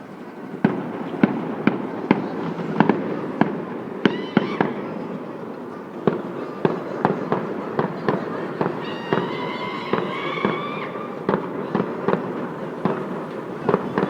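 Many New Year's fireworks going off over a city: irregular sharp bangs, one or two a second, over a continuous rumble of more distant bursts. A held tone of several pitches rises out of it briefly about a third of the way in and again for a couple of seconds past the middle.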